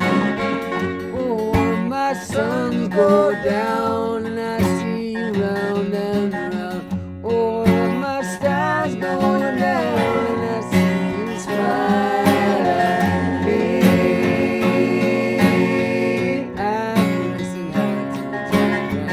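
Music: strummed acoustic guitar over a bass line, with a lead melody that slides and bends in pitch, playing an instrumental passage of a country-flavoured song.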